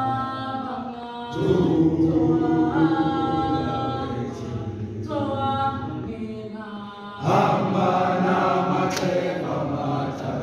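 A group of voices singing a gwijo, a Xhosa communal chant song, unaccompanied. The singing swells sharply louder about a second and a half in and again about seven seconds in, as new phrases begin.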